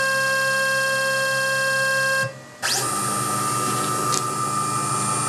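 The Quick-CNC K6100a router's Z-axis motor whining steadily as it drives the tool down for an automatic Z touch-off on the tool-setter puck. It stops a little over two seconds in and, after a short pause, starts again at a different pitch.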